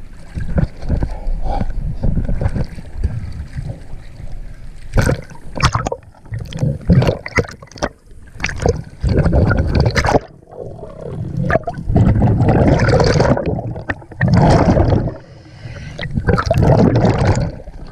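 Water gurgling and sloshing around a camera as it moves at the sea surface and underwater, in uneven loud bursts with bubbles.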